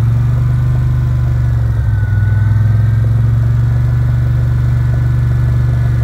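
A vehicle's engine running steadily at low speed: a low, even drone with a faint wavering whine above it.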